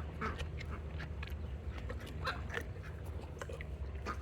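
Farm animals eating treats: a string of short, irregular crunches and clicks, over a steady low hum.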